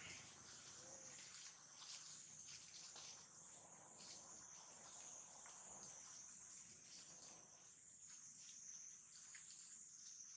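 Faint, steady, high-pitched insect chorus, with a few soft clicks.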